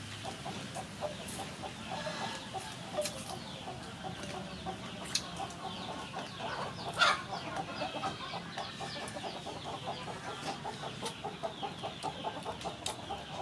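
Chickens clucking, a steady run of short repeated clucks with higher chirps over them and a few sharp clicks; one louder call about seven seconds in.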